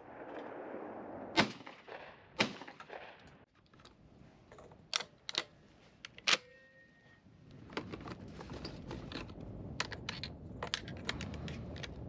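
Gunshots on a shooting range: two sharp shots about a second apart early on, a third shot about six seconds in, then a run of lighter clicks and knocks.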